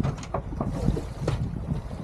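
Wind rumbling on the microphone over the boat and river water, with a few short sharp clicks and splashes as a king salmon is netted at the bow.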